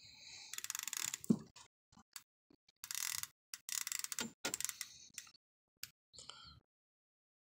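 Fishing reel's ratchet clicker clicking rapidly in irregular spurts as line is pulled off the spool: a hooked sturgeon taking line against the bent rod.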